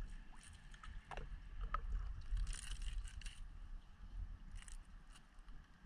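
Shallow water sloshing and splashing over a steady low rumble, with scattered small clicks and one louder splash about two and a half seconds in.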